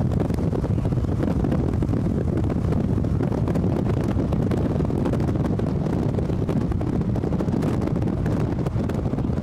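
Strong, gusty thunderstorm outflow wind ahead of a dust storm, battering the microphone as a dense, steady low rumble.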